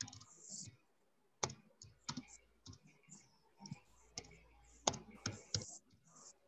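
Computer keyboard typing: faint, irregular key clicks as a short phrase is typed.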